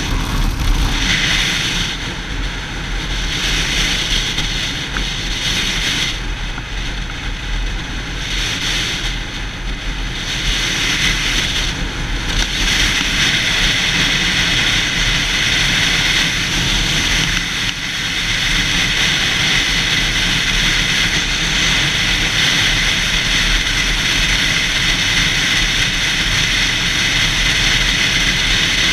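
Yamaha YZF-R6 inline-four sport bike riding at speed, heard as a steady rush of wind over the camera's microphone with the engine underneath. The sound eases off a few times in the first dozen seconds, then holds steady and loud.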